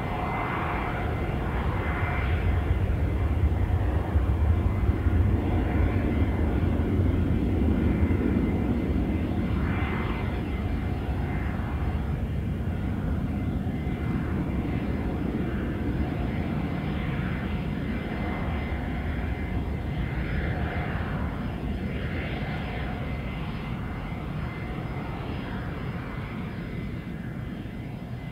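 Boeing C-17A Globemaster III's four Pratt & Whitney F117-PW-100 turbofans at climb-out power just after takeoff: a deep rumble that peaks about five seconds in, then slowly fades as the aircraft climbs away.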